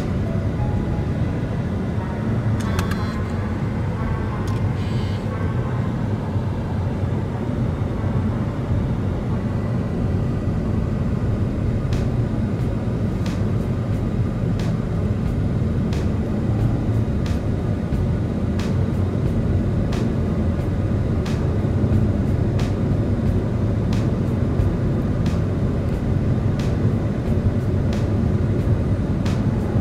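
Steady low rumble of road and engine noise heard inside a car cruising on a freeway, with light sharp ticks repeating from about halfway through.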